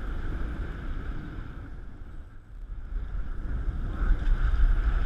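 Wind buffeting the microphone and choppy water against a boat hull. From about four seconds in it grows louder as a hooked striped bass is swung out of the water, splashing.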